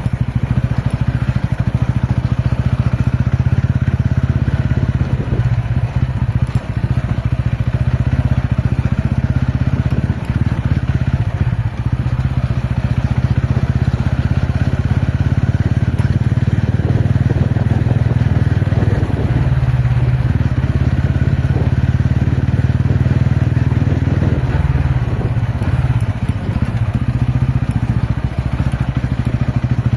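TVS Ronin's single-cylinder engine running steadily at low revs during an off-road ride, with scattered crackling and clattering over it.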